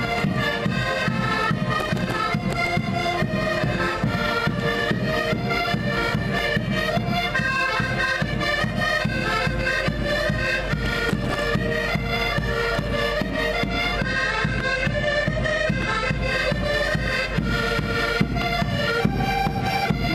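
An ensemble of accordions playing a traditional Portuguese folk tune together, with a bass drum beating steady time underneath.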